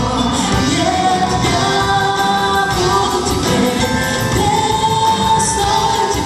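Folk-pop song with band accompaniment, voices singing long held notes.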